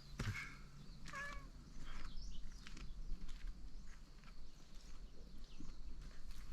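Cats meowing to be fed: two short meows in the first second or so, followed by fainter scattered calls and light scuffling.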